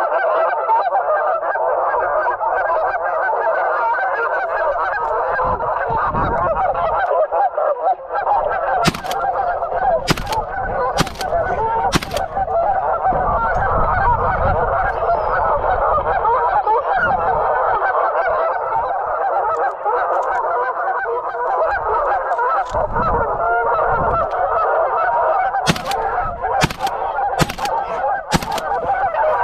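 A flock of geese honking continuously, many overlapping calls. Two quick runs of four sharp clicks cut through, about a third of the way in and again near the end.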